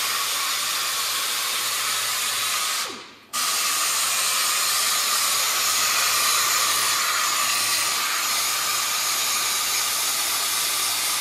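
Angle grinder with a sanding disc working the edge of a curved aluminium part: a steady, loud hissing grind that cuts out briefly about three seconds in.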